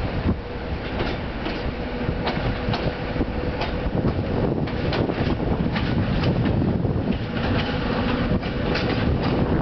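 Diesel locomotive hauling a train of carriages into a station, its engine running under a steady rumble that grows a little louder as it nears. Irregular sharp clicks of the wheels over rail joints and points run throughout.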